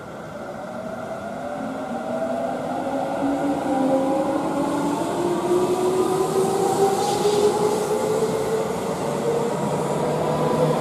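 Seibu 30000-series electric train pulling out and accelerating past, its inverter-driven traction motors whining in several tones that rise steadily in pitch as it gains speed, over the rumble of wheels on rail, growing louder throughout.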